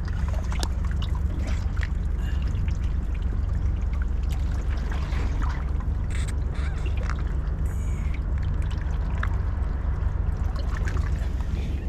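Water trickling and splashing, with scattered small clicks over a steady low rumble.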